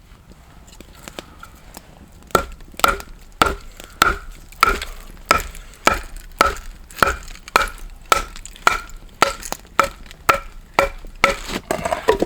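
A machete chopping into a block of hard Osage orange heartwood, a steady run of sharp strokes a little under two a second, starting about two seconds in.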